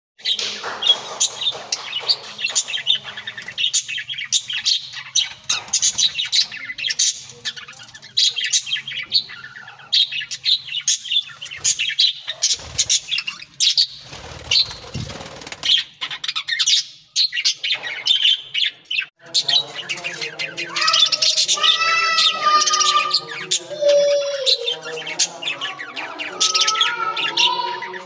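A colony of budgerigars chattering, with dense, rapid high chirps and twitters. About two-thirds of the way in, lower calls with sliding pitch join in over the chirping.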